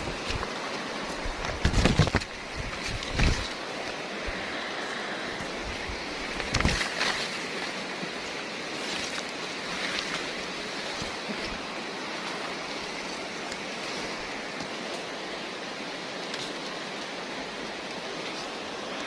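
Steady rushing of a river's flowing water, with a few short thumps and rustles about two, three and seven seconds in.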